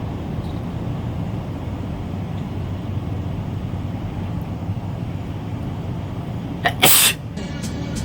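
A woman sneezes once, about seven seconds in: a short lead-in followed by a loud, sharp burst. Steady low rumble of the car's cabin throughout.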